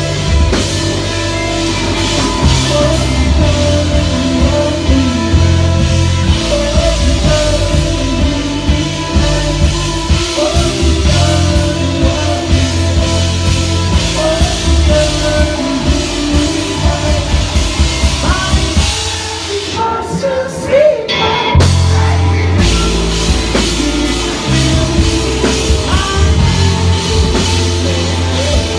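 Rock band playing live, with singing, a drum kit and guitars. About two-thirds of the way through, the drums and bass drop out for about two seconds, then the full band comes back in.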